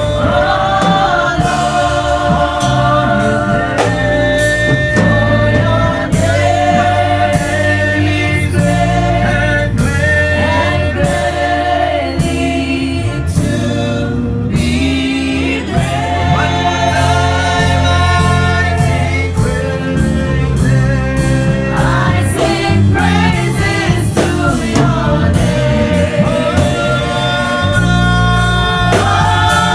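Gospel worship music: singing voices holding long, gliding notes over sustained instrumental chords and a steady bass.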